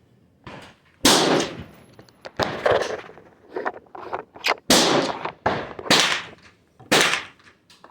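Gunshots on a shooting range: about half a dozen sharp reports at irregular intervals, each trailing off in an echo.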